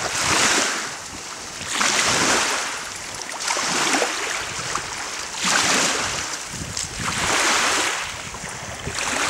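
Choppy lake water washing against the reedy, icy shore in surges about every two seconds, with wind.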